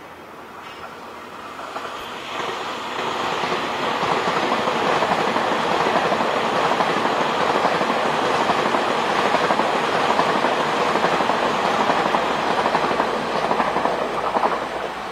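Taiwan Railways EMU3000 electric multiple unit passing, its wheels running on the rails with a steady rushing noise. The sound swells over the first few seconds, stays loud, and eases off near the end.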